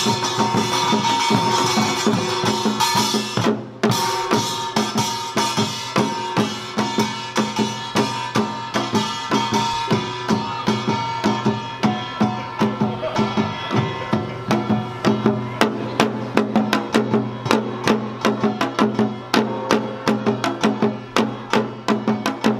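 Samulnori percussion ensemble of kkwaenggwari, jing, janggu and buk playing the Utdari rhythm. The players stop together briefly about three and a half seconds in, then carry on. Later the bright gong clatter drops back, leaving evenly spaced drum strokes over a sustained jing.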